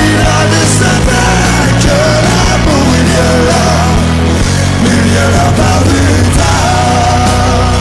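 Rock music with a steady, loud bass line and melody.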